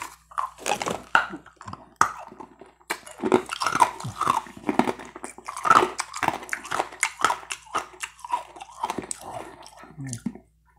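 Close-miked wet mouth sounds of a Charms Blow Pop lollipop being sucked: irregular smacks, slurps and clicks of lips and tongue on the hard candy.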